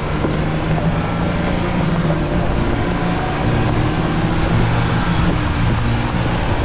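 Jeep Rubicon driving up a rough off-road mountain trail: the engine runs steadily under a constant wash of tyre and trail noise.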